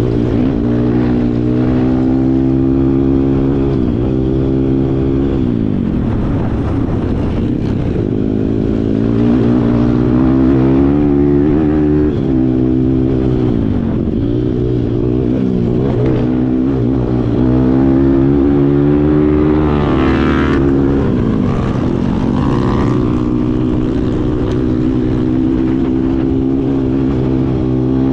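Kawasaki KLX140 dirt bike's single-cylinder engine being ridden, its revs climbing and dropping over and over, then holding steadier near the end.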